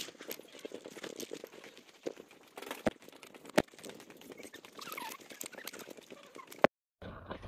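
Footsteps and the rustle and clicks of a handheld camera being carried while walking, with a few sharper taps. The sound cuts out abruptly for a moment near the end.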